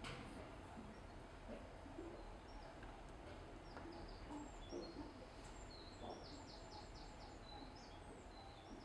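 Faint songbird calls in a marsh: scattered high chirps, with a quick run of about five repeated notes about six seconds in, over a low steady background noise.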